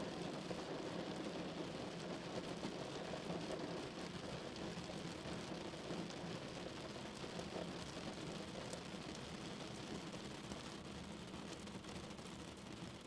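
Heavy rain falling on a car, a steady dense patter of drops that grows a little quieter toward the end.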